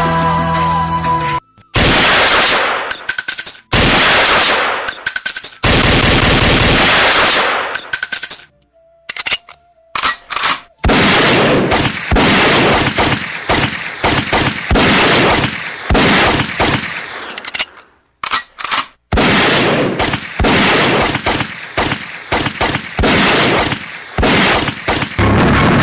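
Recorded machine-gun fire sound effects played over a stage sound system for a staged gunfight, in long rapid bursts with short breaks. A music track ends about a second and a half in, just before the first burst.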